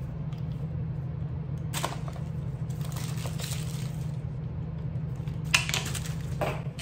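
Rustling and crinkling of honeycomb paper packaging and handling of a plastic hand-cream tube, in a few short bursts, with a sharp click about five and a half seconds in. A steady low hum runs underneath.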